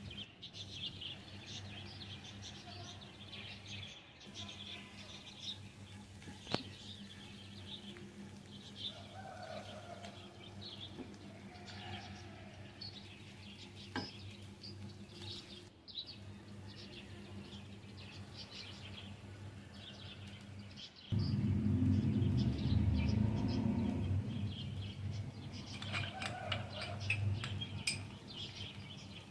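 Silicone spatula stirring minced chicken and chopped vegetables in a nonstick frying pan, with a couple of sharp taps, over a steady low hum and small birds chirping in the background. A louder low rumble runs for a few seconds about two-thirds of the way through.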